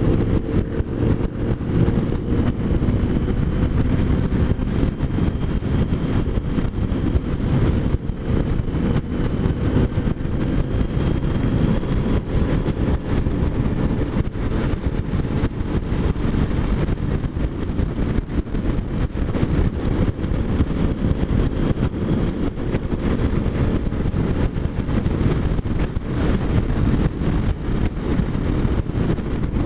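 Motorcycle cruising at a steady road speed: a steady engine note under heavy wind noise buffeting the microphone.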